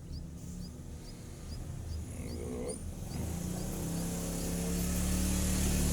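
Faint short, high, rising chirps repeated about twice a second from a small bird, fading out after about four seconds, over a louder low steady hum that grows louder toward the end.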